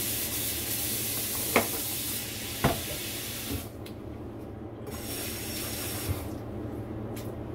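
Kitchen mixer tap running into a sink while hands are rinsed under it. The water stops a little before halfway, runs again about a second later and stops near the end, with two sharp knocks in the first half.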